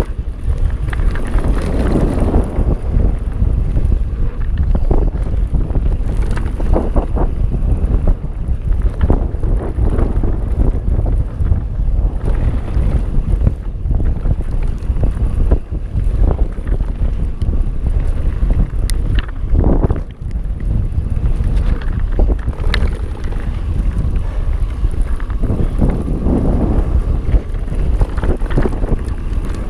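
Mountain bike descending a dirt bike-park trail at speed: steady wind buffeting the camera microphone over the rush of tyres on loose dirt, with frequent clicks and rattles from the bike over bumps.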